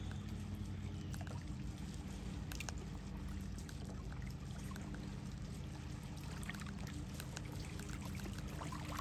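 Lake water lapping and trickling with scattered small splashy ticks, over a steady low background hum.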